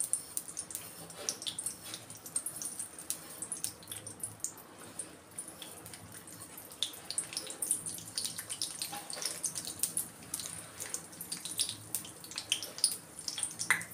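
Mustard seeds sizzling in hot oil in a small stainless-steel kadai, with irregular small ticks and pops: the start of a tempering (talimpu).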